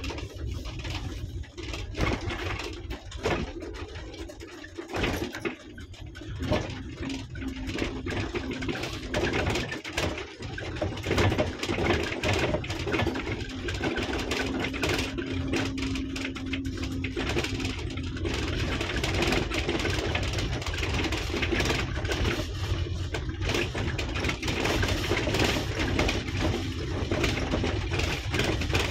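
Car driving slowly on a bumpy gravel dirt track, heard from inside the cabin: the engine runs steadily under a rumble of tyres on the gravel, with frequent small knocks and rattles from the rough surface.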